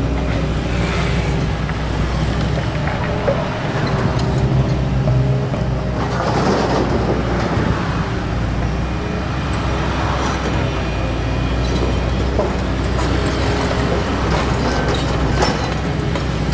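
Doosan DX225LCA excavator's diesel engine running steadily under work, with a stretch of rushing noise about six to eight seconds in and scattered sharp clanks.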